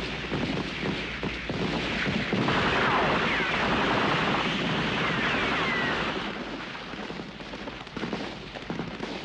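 Battle sound: rapid gunfire, then from about two and a half seconds in a longer rushing blast with a few falling whistles over it, which dies down into scattered shots near the end.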